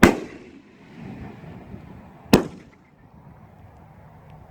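Alien Fireworks 'For Honor' 500-gram nine-shot cake firing: two loud booms about two and a third seconds apart, each trailing off in an echo, with a low rumble between them.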